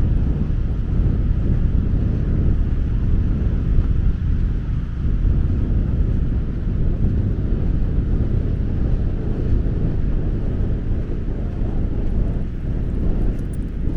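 Strong wind buffeting the microphone: a loud, gusty low rumble with a fainter rushing hiss above it.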